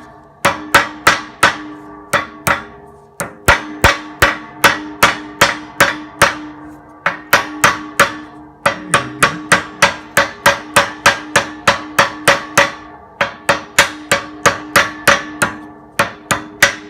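Hammer tapping on metal in quick runs of about four strikes a second, each strike ringing, broken by short pauses, as a seal and its part are driven into a Case 480C backhoe's hydraulic cylinder.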